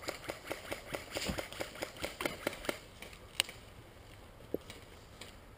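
Rapid, even mechanical clicking, about five clicks a second, which stops about three seconds in; a single sharp click and then a fainter one follow.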